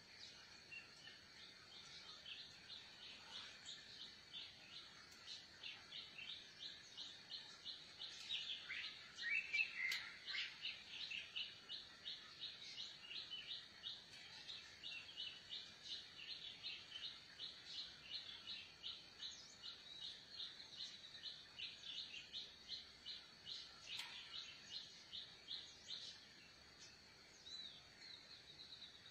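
A bird calling a long series of short, quick chirps, about two or three a second, with a louder, lower flurry about ten seconds in; the calls stop a few seconds before the end. A faint steady high-pitched whine runs underneath.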